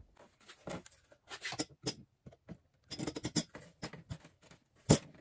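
Irregular clicks, scrapes and knocks of a bench grinder being handled and set onto a hinged steel mounting bracket, with one sharp knock near the end.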